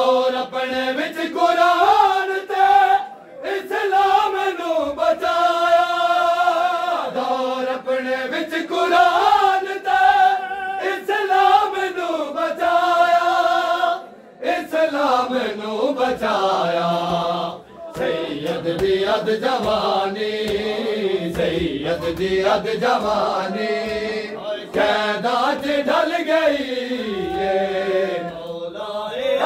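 A chorus of men chanting a Punjabi noha (Shia lament) in unison, in long held melodic phrases that rise and fall and repeat, with brief breaks between lines.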